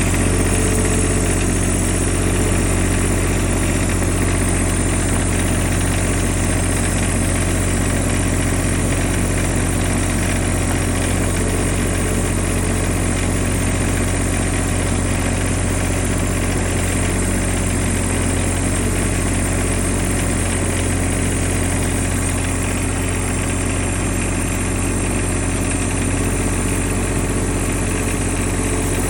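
Mini skid steer's engine running at a steady, unchanging speed.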